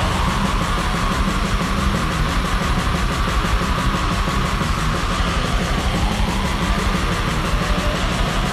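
Excerpt of a raw, lo-fi death metal demo recording: heavily distorted guitar riffing over fast, relentless drumming, in a dense and unbroken wall of sound. The drums are believed to be programmed.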